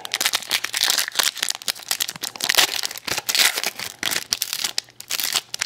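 A hockey card pack's wrapper being torn open and crinkled by hand: many quick crackles and rips one after another.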